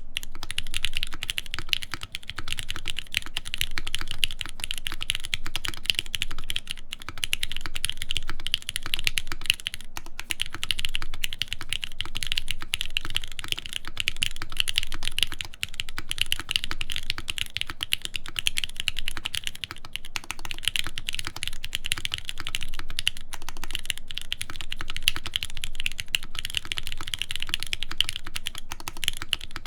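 Continuous fast typing on a custom aluminium-plate mechanical keyboard with lubed Gateron Milky Pro Yellow linear switches and Hammerworks CRP keycaps. It is a steady stream of key presses, with a few brief pauses.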